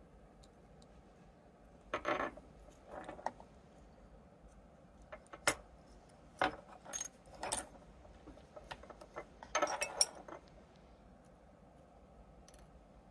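Scattered light clicks and short scrapes of a hobby knife and screwdriver working the metal shell off a Razer Nari Ultimate USB dongle, with small metal and plastic parts tapping as the circuit board comes free.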